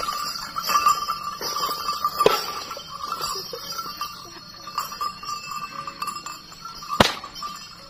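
Sarong-cloth whip (pecut) cracking twice as it is swung: a sharp crack about two seconds in and a louder one near the end.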